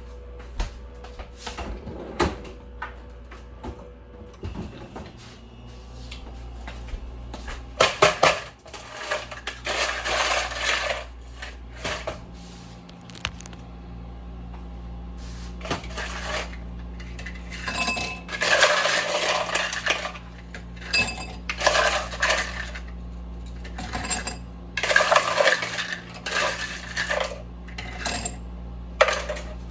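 Glassware and hard kitchen items clinking and clattering in bursts, like things being dropped into a drinking glass, over a steady low hum.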